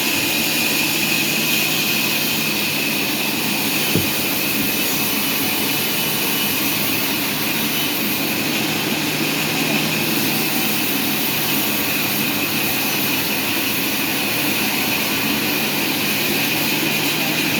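Sawmill machinery running steadily, a constant mechanical noise with a high whine held through it, and one sharp knock about four seconds in.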